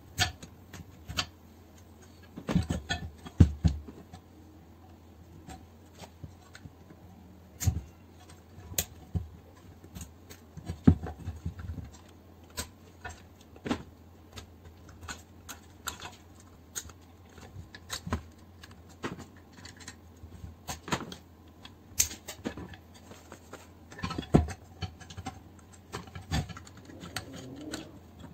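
Hand tools clicking and knocking against the metal pistons and crankcase of an air compressor as it is taken apart by hand: irregular sharp clinks and taps, sometimes in quick clusters.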